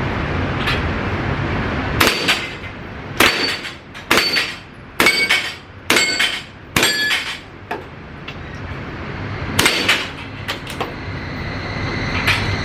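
A string of about seven gunshots, mostly about a second apart with a longer gap before the last, several with a brief metallic ring after the crack.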